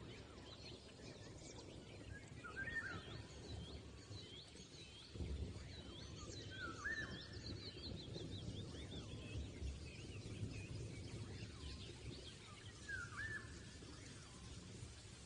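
Birds chirping faintly: a string of short, quick chirps that rise and fall in pitch, over low background rumble.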